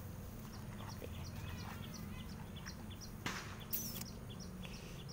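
Outdoor bird chirping: short high chirps repeating about three times a second, with a warbling call about a second and a half in and a sharp high call near four seconds, over a steady low hum. A brief rustle about three seconds in.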